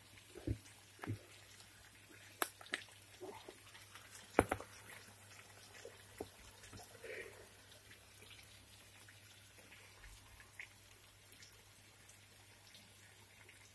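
Chicken pieces frying in a pan: a faint sizzle with a few sharp pops, the loudest about two and a half and four and a half seconds in, over a low steady hum.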